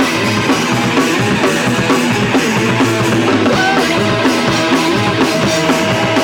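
Punk rock song with drum kit and electric guitar playing an instrumental stretch between sung lines.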